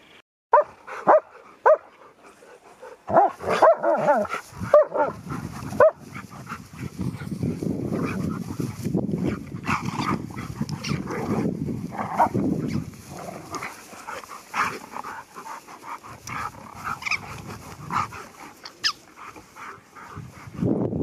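Dogs play-fighting: a few sharp barks in the first seconds and a quick flurry of barks a few seconds in, then a long stretch of low, rough play growling that fades to scattered smaller sounds near the end.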